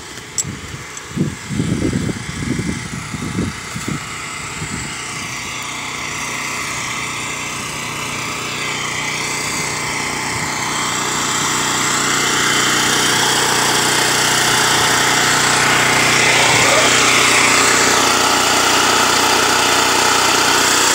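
Small petrol engine of a portable water pump running steadily, growing louder as it is approached. A few low thumps sound in the first few seconds.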